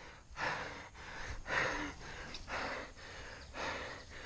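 A person breathing heavily close to the microphone, with hard in-and-out breaths coming about once a second.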